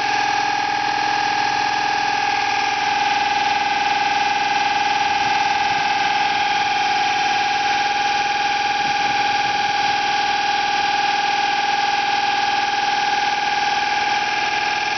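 Homemade drilling rig's hydraulic system running steadily, a constant high-pitched whine over a dense mechanical hiss.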